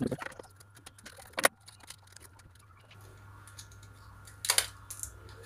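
Plastic blister pack and cardboard backing of a microSD memory card being handled and pried open: scattered clicks and crackles, the sharpest about a second and a half in and another about four and a half seconds in.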